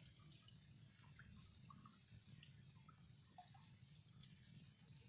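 Near silence: faint, scattered small water drips and plinks over a low steady rumble.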